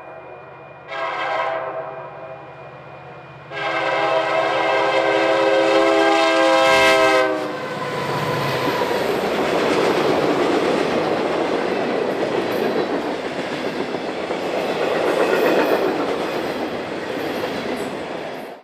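Union Pacific 4014 "Big Boy" steam locomotive sounding its chime whistle: a short blast about a second in, then a long blast of about four seconds. The locomotive and its train then pass with a steady loud rush of running noise, which cuts off abruptly at the end.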